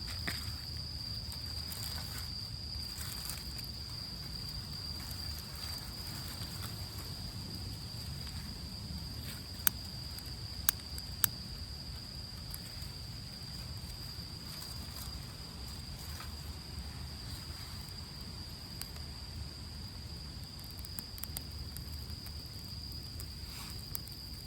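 Steady high-pitched insect song, crickets, over a low outdoor rumble, with three sharp snaps about ten to eleven seconds in.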